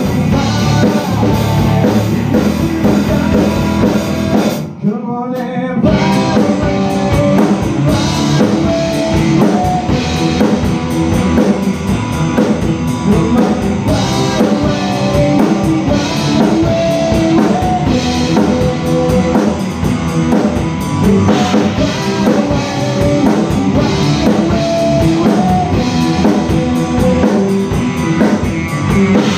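Rock band playing live, with electric guitars, bass, a Tama drum kit and a sung vocal. About five seconds in the band drops out for under a second around a single wavering note, then the full band comes back in.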